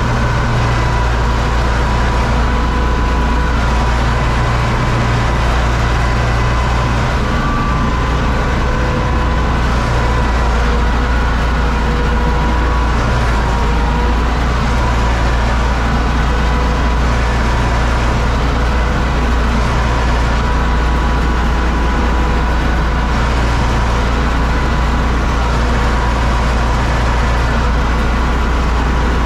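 Diesel engine of a UTB U650 tractor running steadily under load, heard inside the cab, while it pulls a Zmaj Zemun 223 corn picker through the rows. A steady high whine sits over the engine's low drone.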